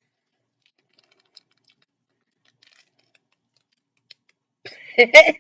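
Faint, scattered small clicks and scratches of plastic cookie dough packaging being handled, then a loud voice breaks in near the end.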